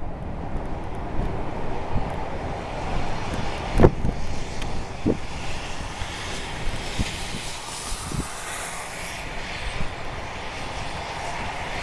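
Airbus A320 jet engines running as the airliner rolls along a runway, a steady rushing noise that grows stronger about halfway through. Wind buffets the microphone, with a sharp gust thump about four seconds in.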